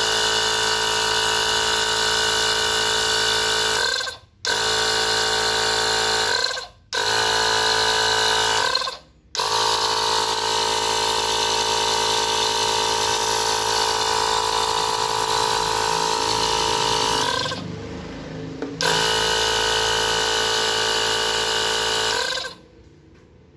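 Ingco CACLI2001 20 V cordless tyre inflator's compressor running free with no tyre attached, a steady even-pitched motor sound. It is switched off and straight back on three times, about four, seven and nine seconds in, sags briefly near eighteen seconds, and stops about a second before the end.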